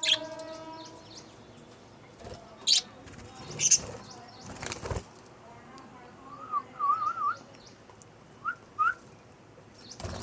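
Pet parrots, lovebirds and budgerigars, calling: three sharp chirps about a second apart, then a short run of wavering whistled notes and two brief rising notes near the end.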